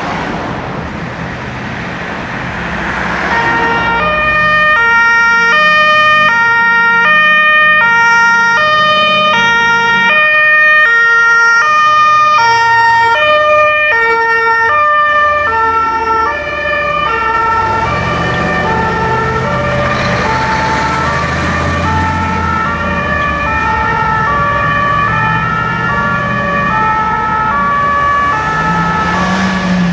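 Two-tone fire-truck sirens (German Martinshorn) sounding on an emergency run, growing loud from about four seconds in, then dropping in pitch as the trucks pass. Heavy truck engines rumble by in the second half.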